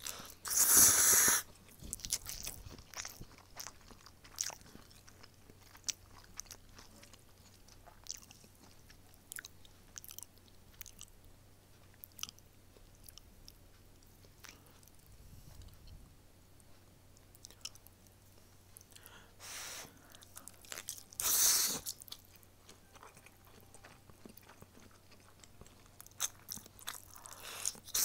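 A person eating stir-fried somen noodles, chewing with small wet clicks. Two long, loud slurps come about a second in and again about three-quarters of the way through, with another burst of slurping near the end.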